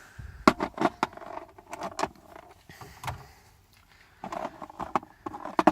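Irregular sharp metal clicks and rattles as the removed door lock cylinder and its small parts are handled, some in quick clusters.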